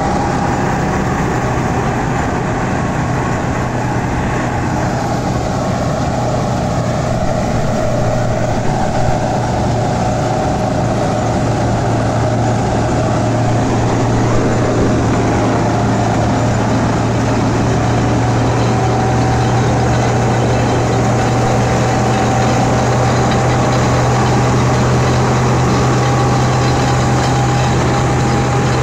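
Tractor-driven wheat-straw chopper running steadily off a Massey Ferguson 385 tractor. The tractor's diesel engine holds a constant drone under load, and the machine's belts, pulleys and blower add a steady whine.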